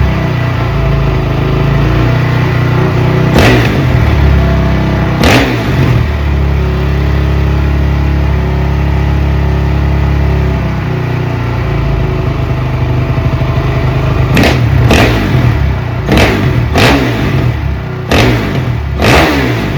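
Honda CRF450R's single-cylinder four-stroke engine idling after a top-end rebuild, blipped hard on the throttle twice a few seconds in, then six quick revs in a row near the end.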